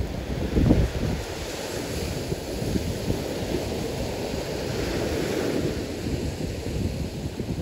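Small waves breaking and washing up onto a sandy beach in a steady rush, with wind buffeting the microphone in gusts, a strong one about a second in.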